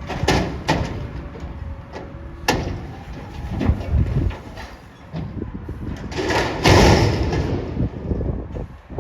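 Peterbilt 320 McNeilus Atlantic front-loader garbage truck working: its engine rumbles under a series of sharp metal bangs, with a loud rushing burst about two-thirds of the way through.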